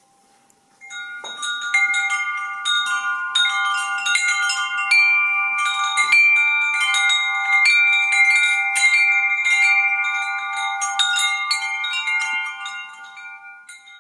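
Metal chimes ringing, many overlapping notes struck in quick, irregular succession, starting about a second in and dying away near the end.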